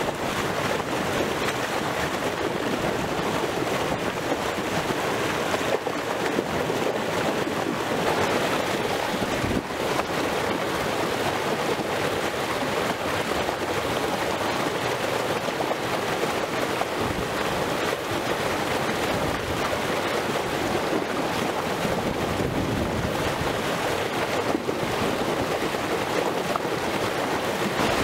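Water cascading over a concrete fishway step at a river weir: a steady rushing and churning of white water, close up.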